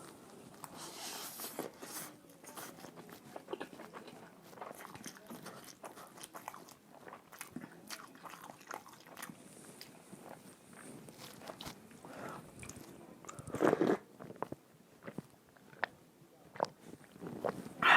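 Close-miked eating sounds from a mukbang: chewing and biting, with crunchy, wet clicks and a louder mouthful about two-thirds of the way through.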